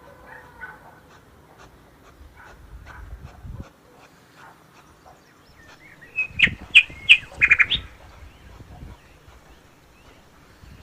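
A bird chirping: a quick run of short, high calls about six seconds in, the loudest sound here, over faint clicks and low rumbles.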